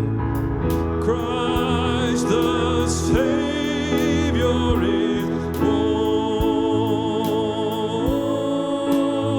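A worship song: a singer holding long notes with vibrato over sustained instrumental accompaniment, with a light steady beat.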